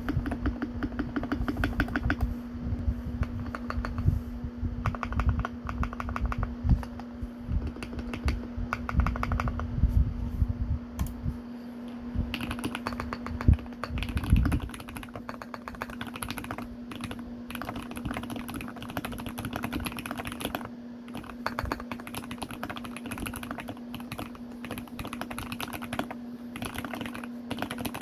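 Fast, continuous typing on a GMMK Pro mechanical keyboard with lubed Gateron milky yellow linear switches and foam dampening. The key strikes are heavier and denser for the first ten seconds or so, then lighter. A steady low hum runs underneath.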